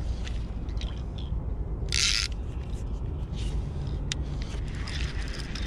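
A baitcasting rod and reel being handled and lifted out of a metal spike rod holder: scattered mechanical clicks and ratcheting, with one short, loud rasp about two seconds in.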